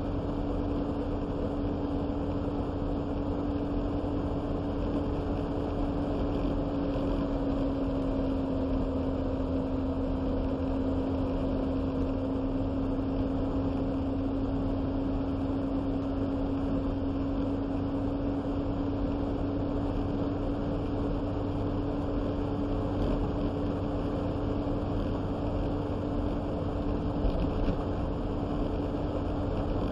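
Steady engine and road noise inside a moving vehicle's cab, with a constant droning hum.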